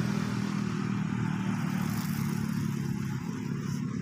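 A motor vehicle's engine running steadily close by, a continuous low hum.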